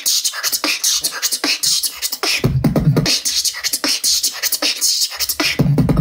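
Human beatboxing: a rapid, unbroken string of sharp percussive mouth sounds, with deep bass coming in about two and a half seconds in and again near the end.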